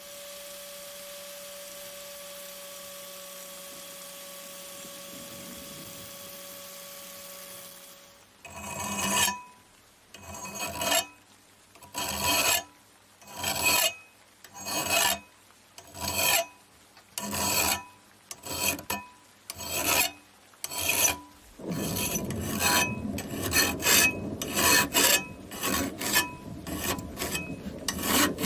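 Rasping hand strokes of an abrasive or file on a knife blade, as in rust removal during a restoration. They begin about a third of the way in, after a steady hiss, at an even pace of roughly one stroke every second and a bit, then turn quicker and more continuous near the end.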